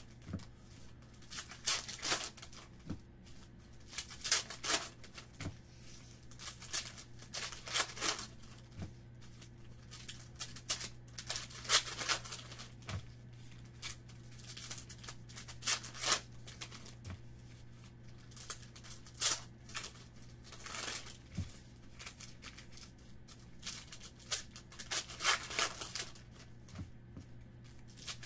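Foil wrappers of Panini Diamond Kings baseball card packs crinkling and tearing as the packs are ripped open one after another, with cards sliding out in between. A faint steady low hum runs underneath.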